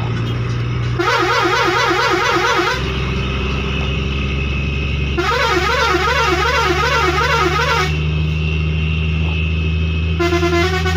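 Telolet basuri six-trumpet musical air horn on a truck playing. It gives two rapid warbling passages, one about a second in and another around five seconds in, each wobbling about five times a second, with steadier held horn notes between them. Near the end it moves into a stepped melody, all over a steady low hum.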